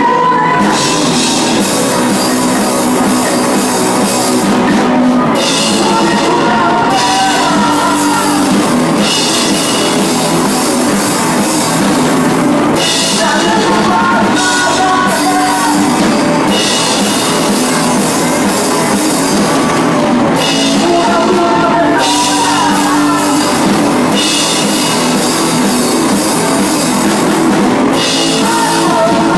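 A rock band playing live: drum kit with cymbals, electric guitars and bass, with a sung vocal line over them.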